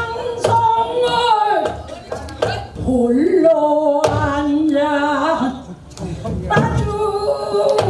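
An elderly woman's pansori singing voice in long held, wavering notes sung in phrases, with a short break about three-quarters of the way through. Sharp strokes on a buk barrel drum accompany her.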